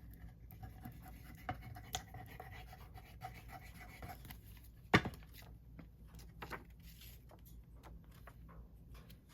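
Faint handling of paper and craft materials: scattered light rustles and small clicks, with one sharp tap about five seconds in.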